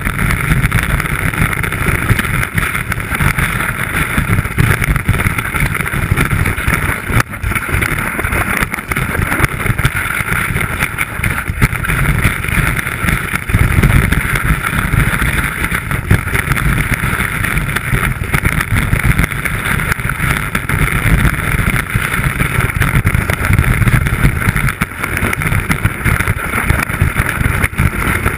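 Skis running fast over snow, heard through a camera mounted on the ski: a loud, steady rushing hiss with an uneven low rumble from the ski chattering over the snow and wind buffeting the microphone.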